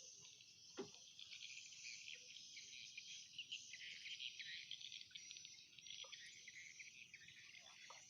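Faint, dense insect chorus, a continuous high shrill buzzing of many insects, with a single soft tap a little under a second in.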